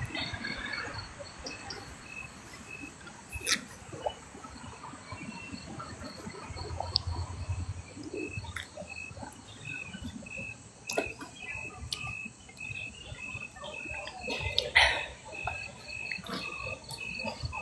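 An insect chirping steadily in short, evenly spaced chirps, about two or three a second, from about halfway through. A few soft clicks and knocks are heard over it, the loudest one near the end.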